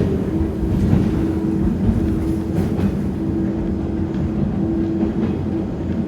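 Toyama Chiho Railway 10030-series electric train running, heard from inside the car: a steady low rumble and hum, with occasional clicks of the wheels over rail joints.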